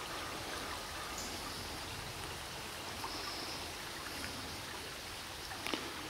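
Shallow stream trickling over rocks: a steady wash of running water.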